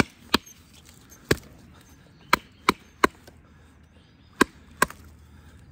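Wood being chopped with a Fallkniven S1 knife: about eight sharp blows in small irregular groups, each with a short ring.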